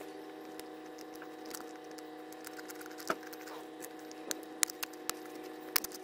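Thin plastic drinks bottle crackling and clicking as it is handled and a wooden stick is pushed through holes in it, with the clicks coming thicker in the last couple of seconds, over a faint steady hum.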